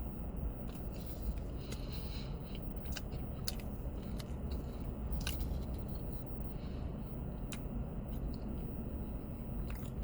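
A person chewing a mouthful of turkey sandwich with stuffing: wet, irregular mouth clicks and smacks, a few each second, over a steady low background hum.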